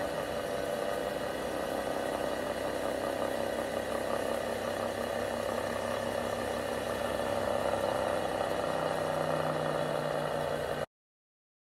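Homemade 3D-printed axial flux electric motor running at speed, its steel magnet rotor plate spinning with a steady hum and whine; balancing weights are fitted but the rotor is still slightly out of balance. A lower hum joins about nine seconds in, and the sound cuts off suddenly near the end.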